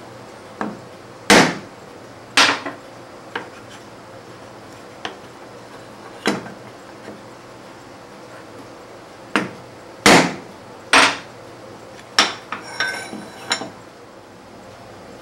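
A hammer tapping a hardwood block against a steel table-saw top: about a dozen sharp, irregular knocks, the heaviest a little over a second in, around two seconds, and twice around ten to eleven seconds. A short metallic clatter with a light ring follows near the end.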